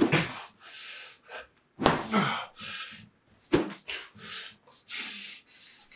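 A man's breathy huffs and gasps as he moves about energetically, with two sharp knocks, one a little under two seconds in and one about three and a half seconds in.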